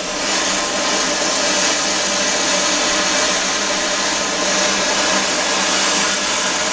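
Hand-held MAP gas torch burning with a steady hiss, its flame on a steel nut clamped in a vise to bring it to red heat.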